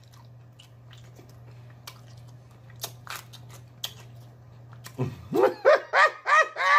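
Someone chewing with the mouth close to the microphone: scattered wet clicks and smacks over a faint steady low hum. About five seconds in comes a quick run of about six loud, high-pitched laughing whoops, each rising and falling.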